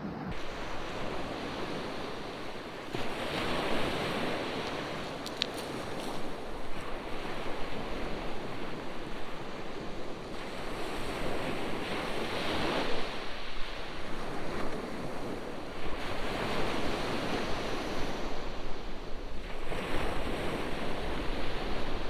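Sea waves breaking on the beach, the surf swelling and falling away every few seconds, with wind on the microphone.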